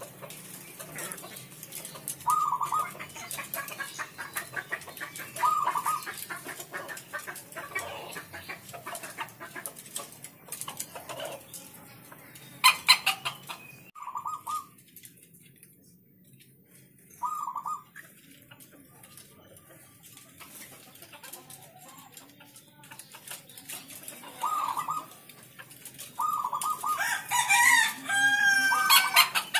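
Zebra doves (perkutut) cooing: a short call repeated every few seconds. A brief loud clatter comes about halfway through, and near the end a longer, louder bird call steps down in pitch.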